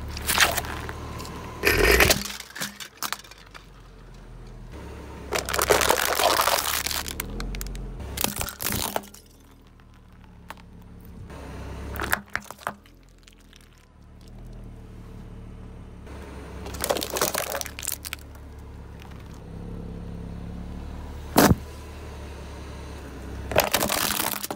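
A car tyre rolling slowly over small objects one after another, crushing squishy toys, foil-lidded metal food tins and a plastic toy with a series of separate crunches and cracks, one of them a single sharp crack a little before the end. Under it the car's engine runs low and steady.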